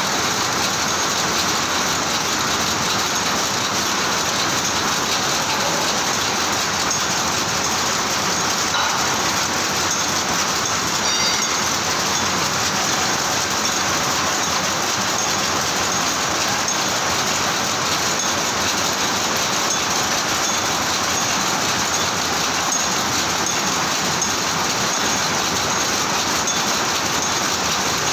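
Power loom with an electronic Jacquard head running at speed, a dense, steady mechanical clatter that keeps up without a break.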